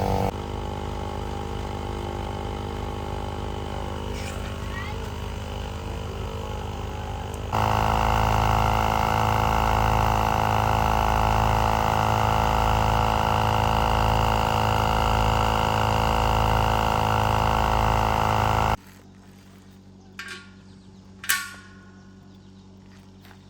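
A motor-driven machine running steadily at a constant pitch. It gets louder about seven seconds in, with a slow pulsing in the low end, and stops abruptly near nineteen seconds. After that a much quieter background holds a couple of short clicks.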